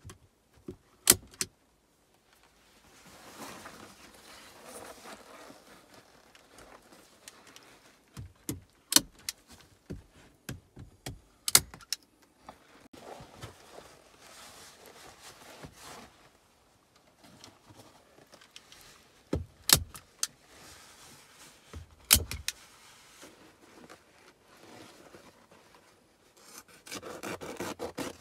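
Heavy fabric sheet rustling as it is pressed up and tucked against a log wall and ceiling, with sharp knocks every few seconds, often two close together, as it is fastened in place. The rustling grows louder near the end.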